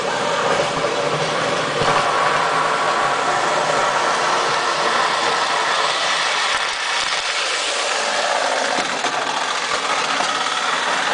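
1932 Ives toy electric train running on its metal track: a steady whirring rattle of the motor and wheels.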